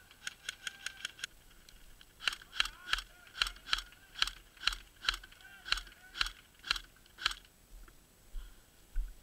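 Airsoft rifle firing: a quick, even string of shots that stops about a second in, then after a pause single shots at about two a second for some five seconds.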